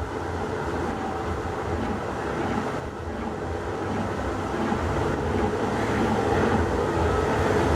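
Steady rumbling background noise that grows slightly louder toward the end.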